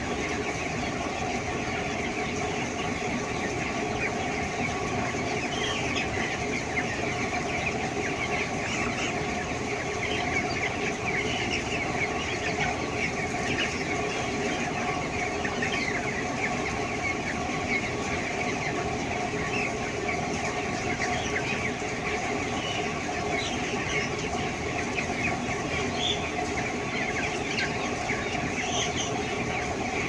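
A large flock of 18-day-old broiler chicks calling all at once, a continuous chorus of short peeps and clucks, over a steady hum with a few constant tones.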